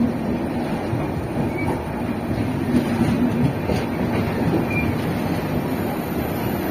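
Passenger train rolling on the rails through the station: a steady, loud rumble of wheels and coaches, with two brief, faint high wheel squeals.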